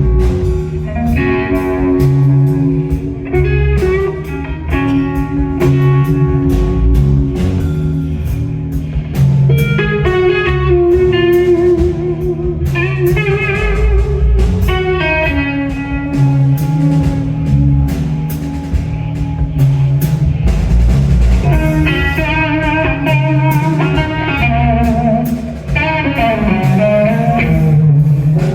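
Live rock band playing: an electric guitar holds and bends long notes over bass guitar and drum kit.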